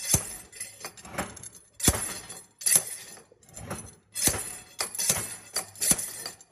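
Slide hammer being worked to pull a rusted, seized key out of an electric motor's pulley and shaft keyway: the sliding weight strikes its stop in repeated sharp metallic clanks, about one to two a second.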